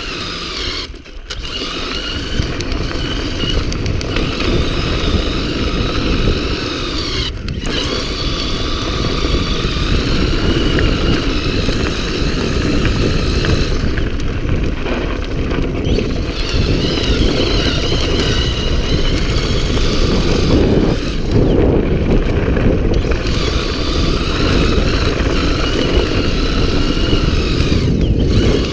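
Homemade electric bike's motor whining, the pitch rising and falling with speed and cutting out briefly several times. Under it, a heavy rush of wind on the microphone and the tyres rolling over a dirt track.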